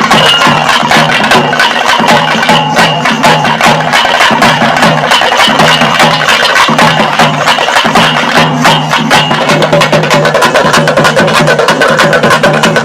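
Fast percussion-driven music: rapid, sharp drum strokes packed close together, over a low pitched tone that comes and goes.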